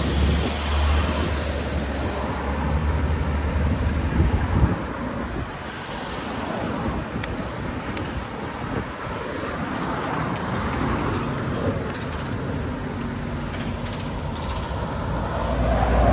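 City street traffic: cars and other motor vehicles passing on the road. A low rumble drops away about four and a half seconds in and swells again near the end, with two brief ticks near the middle.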